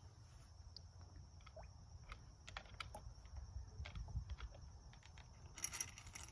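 Faint small clicks and ticks from Mentos candies being handled and dropped into an open bottle of orange soda, with a short hiss near the end.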